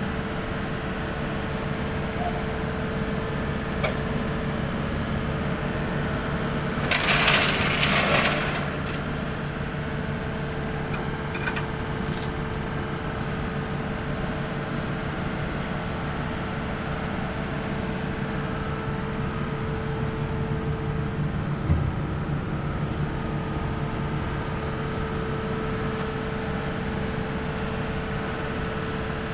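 Skid steer engine running steadily with a constant whine, heard from the operator's seat. About seven seconds in comes a brief loud rushing hiss lasting about a second.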